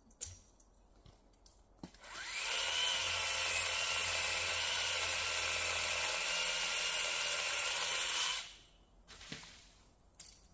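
Parkside cordless pole saw's electric motor and chain spinning up with a rising whine, running steadily for about six seconds, then stopping. A few sharp clicks come before it starts, and a couple of knocks come after it stops.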